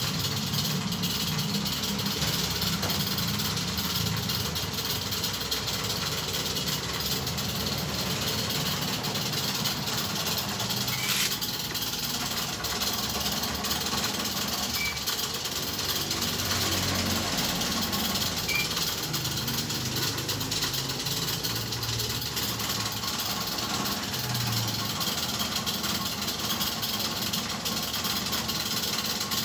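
Steady noise of machine-shop machinery running, a constant mechanical hiss and rumble with no pauses.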